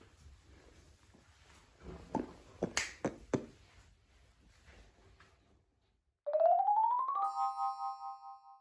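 Short synthesizer jingle: a single tone glides upward and settles into a held chord, after a few faint knocks over low background noise.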